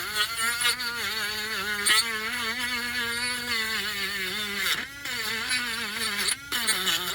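Small electric sander running, its motor pitch wavering up and down as it is worked. It drops away briefly twice, about five and six and a half seconds in.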